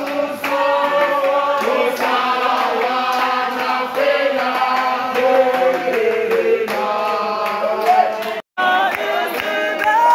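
A group of mourners singing together unaccompanied, many voices at once in harmony. The singing breaks off abruptly for a moment about eight and a half seconds in, then resumes.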